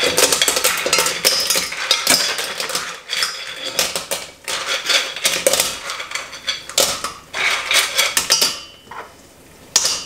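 Vongole clams clattering as their shells are tipped from a bowl into a pot, a rapid run of hard clicks and clinks that thins out near the end.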